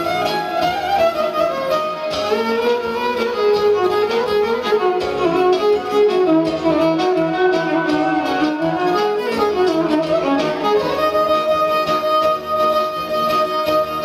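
Live Greek folk dance music, a tsifteteli–ballos medley: a violin plays a winding, sliding melody over laouto strumming and keyboard accompaniment. About eleven seconds in the melody settles into a long held note.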